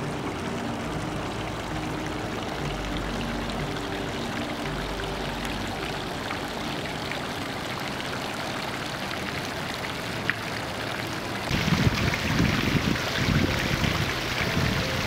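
Fountain water jets splashing into a stone basin in a steady rush. About eleven seconds in, the splashing suddenly becomes louder and fuller.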